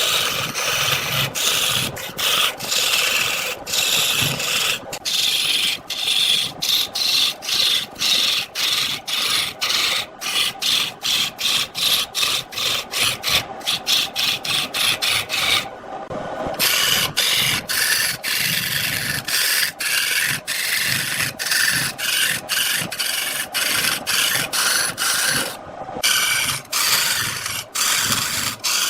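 Wood being cut and scraped on a wood lathe: a rough rasping in short repeated strokes, a few a second, with two brief breaks, one near the middle and one near the end.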